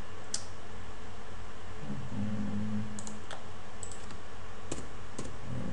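About six sharp computer keyboard and mouse clicks, spread irregularly with two close pairs, over a steady background hiss.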